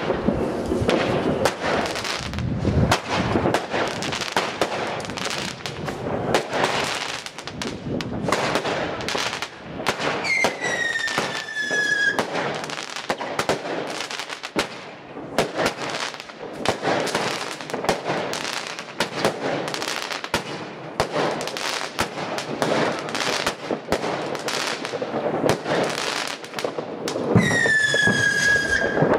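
Multishot firework cakes firing: a rapid run of launches and bursting bangs with crackle. Twice, about ten seconds in and again near the end, a whistle falls in pitch.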